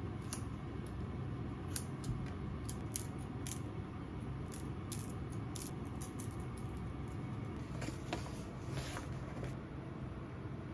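Kitchen scissors snipping through raw pork slices: a run of short, sharp snips. About eight seconds in, a brief patter of salt and pepper being sprinkled over the meat.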